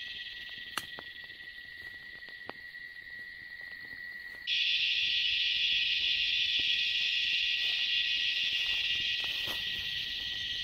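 Loud cicada chorus, a steady high buzzing that jumps louder about four and a half seconds in, with a few faint crackles from a small campfire.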